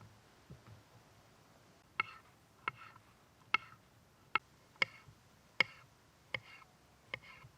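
A series of about eight sharp knocks, spaced a little under a second apart, each with a short ringing tail, like a knife chopping on a board or wood being struck.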